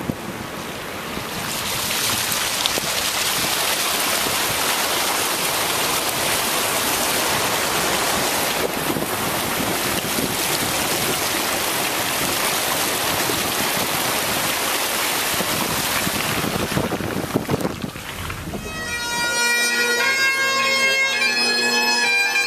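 A steady rush of water as a vehicle ploughs through deep standing water in heavy rain. Near the end, after a cut, a Great Highland bagpipe plays a tune over its steady drones.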